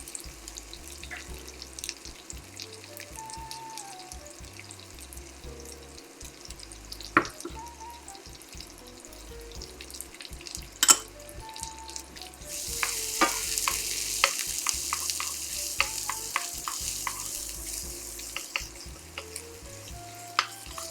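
Onions, garlic and herbs frying in olive oil in a pan, stirred with a utensil that clicks and knocks against the pan now and then. The sizzle grows louder about two-thirds of the way through, then eases off.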